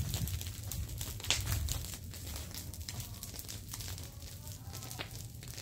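Dry grass and leaf litter crackling in scattered sharp clicks over a low steady rumble.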